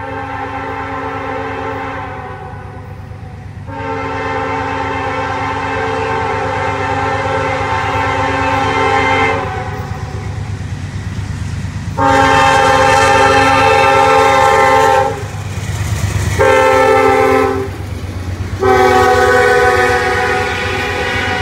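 CSX diesel freight locomotive's air horn blowing five chord blasts: a long one, then long, long, short, long, the grade-crossing warning signal. Underneath runs the steady rumble of the locomotive and the freight cars rolling past on the rails.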